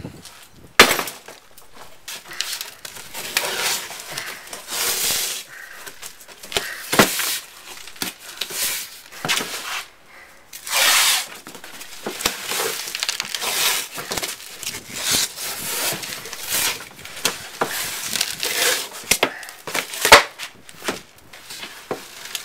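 Hands packing a cardboard box: cardboard scraping and crinkling, with rips of tape pulled off the roll to bind the box. Sharp knocks about a second in and again near the end.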